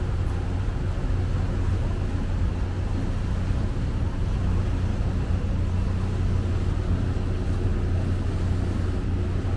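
Small passenger ferry's engine running steadily, a constant low hum heard from on board.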